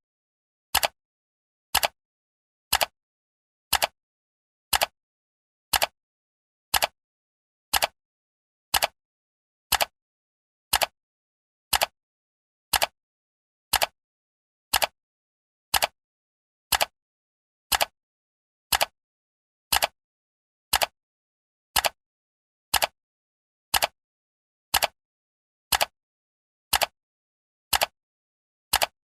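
Countdown timer's clock-style ticking: short, sharp ticks, evenly spaced at one per second, all alike in loudness.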